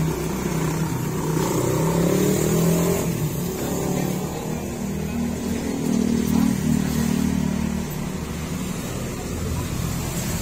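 Motor vehicle engine running, its pitch rising a couple of times as the vehicle is driven and manoeuvred.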